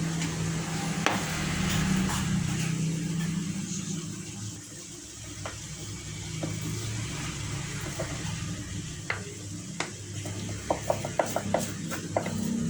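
Light clicks and clinks of cookware, coming thick and fast near the end, after a low engine hum that fades away in the first few seconds.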